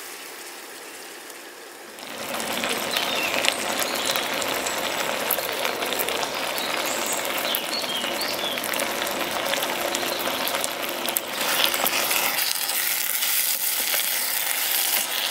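Paella rice simmering and sizzling in a non-stick pan, a steady dense hiss. Near the end a spatula scrapes and stirs through the rice against the pan, with scattered clicks.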